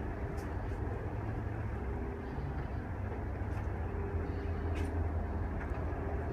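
A steady low rumble, with a few faint footsteps on a tiled floor.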